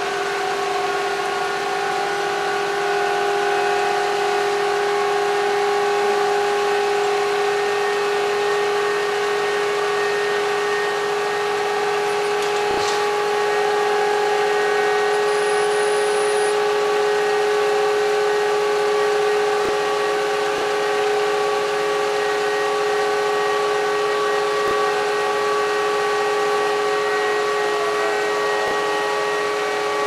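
Truck-mounted hydraulic loader crane and its truck's engine running, giving a steady mechanical whine of several tones, with a slight drop in pitch near the end and a few faint knocks.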